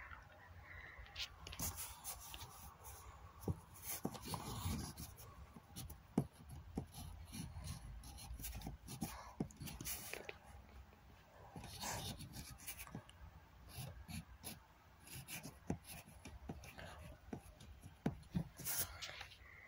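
Paper being scratched and rubbed in many irregular short strokes, as with a pencil working over a drawing or sheets of drawing paper being handled.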